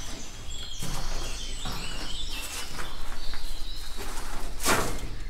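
Small birds chirping and twittering outdoors, with a few faint noises and one sharper, louder burst of noise shortly before the end.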